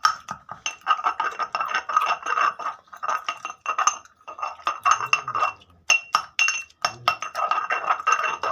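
Stone pestle clinking and scraping against a stone mortar in quick repeated strokes while mashing slime, the mortar ringing with each knock, with a few brief pauses.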